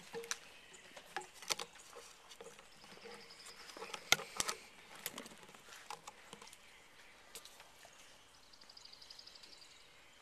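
Scattered clicks and light knocks of a bow being handled and readied, picked up by the camera mounted on it; the loudest knock comes about four seconds in. A faint, rapid high trill sounds twice in the background.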